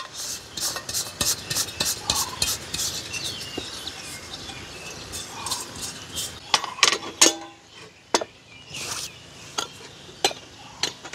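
Metal camp mugs, canister and utensils clinking and clattering on a folding camp table while coffee is prepared: many quick, irregular clinks, busiest in the first half and thinning out later.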